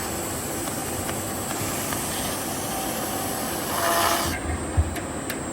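Edge-sanding machine running while the edge of a facade panel is sanded against its abrasive. The sanding gets louder and rasping through the middle and cuts off about four seconds in, followed by a single click.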